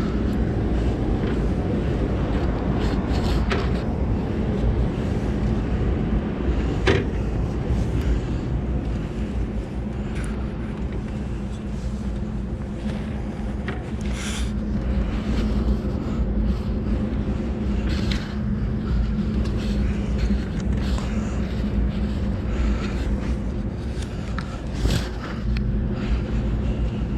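Steady low rumble with a faint hum, and a few scattered knocks and clicks of hands and feet on a ladder as someone climbs it.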